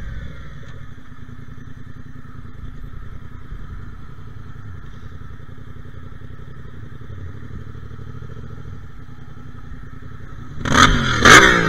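Yamaha Ténéré 700's parallel-twin engine running steadily at low speed and then idling. Near the end, a sudden loud burst of sound breaks in.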